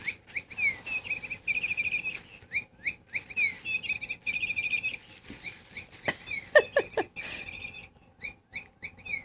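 Motion-activated electronic bird chirper toy chirping over and over as it is batted around, in short falling chirps and rapid warbling trills, with the clicks and knocks of the toy being knocked about.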